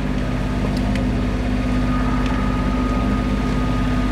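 A sailing yacht's inboard engine running steadily while motoring in calm weather, with an even, fast-pulsing drone.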